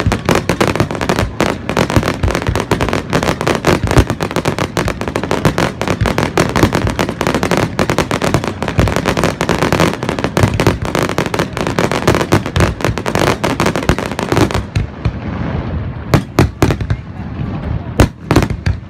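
Fireworks display: a dense, rapid run of bursts and crackling that thins after about fifteen seconds to a few separate loud bangs.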